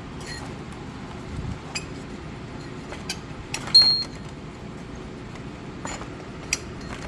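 Scattered clicks and small knocks of trimmer parts and tools being handled and fitted together during reassembly, with one sharp metallic clink that rings briefly about four seconds in.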